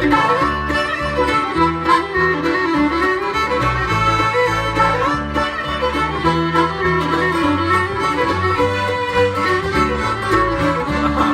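Bluegrass band playing an instrumental break of a waltz-time Irish-flavoured song, with fiddle and accordion carrying the melody over guitar, banjo, mandolin and bass.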